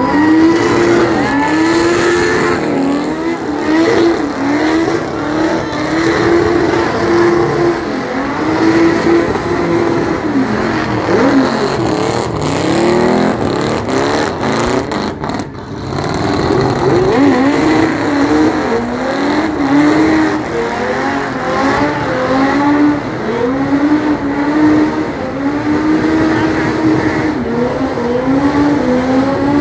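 Car engine revved hard during a tyre-smoking burnout, held at high revs with the pitch sagging and recovering every second or two, and a brief lull about halfway through.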